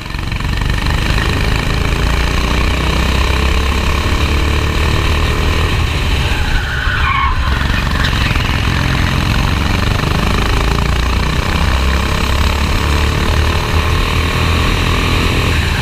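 Racing kart engine heard from onboard, running hard with its pitch climbing and falling as the driver accelerates and lifts through the corners, with a brief drop about seven seconds in.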